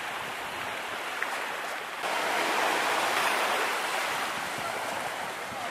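Small sea waves washing on a sandy beach, a steady rushing hiss that gets louder about two seconds in.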